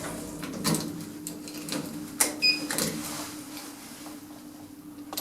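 Passenger lift standing at a floor with its doors open, a steady low hum under several sharp clicks and a brief high beep about two and a half seconds in.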